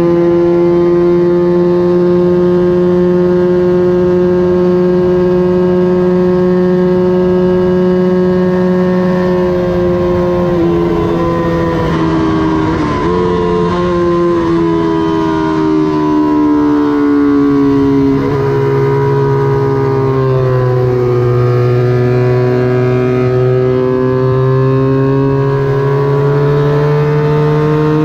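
Small-displacement vintage racing motorcycle engine (Honda CB160/CB175-class) running hard at high revs. It holds a steady high pitch for about ten seconds, drops in several quick steps midway, falls further as the engine slows, then climbs again near the end as it accelerates.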